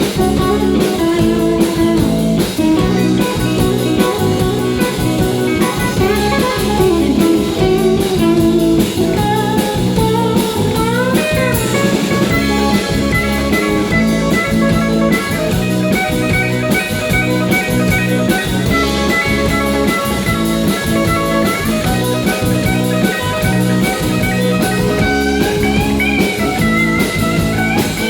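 Live country band playing an instrumental passage: electric guitar over a drum kit with a steady beat.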